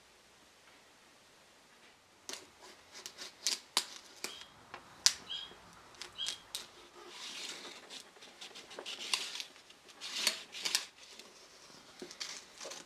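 A thin steel knife blade scraping and clicking against a wooden tabletop, worked into a crack to open up loose veneer, starting about two seconds in as an irregular run of short scrapes and sharp taps.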